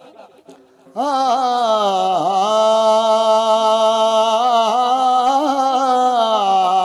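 A man singing one long unaccompanied note, starting about a second in and held with a slight waver for some six seconds: the opening call of a Punjabi folk song.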